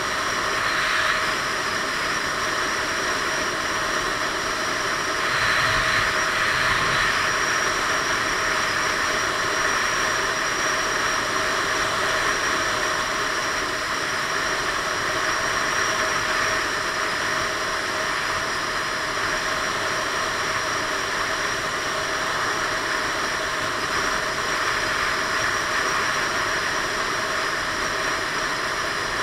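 Steady rush of wind and road noise on a helmet-mounted action camera while riding a Piaggio Beverly 500 scooter at road speed. It is a little louder about six seconds in, with a faint steady hum underneath.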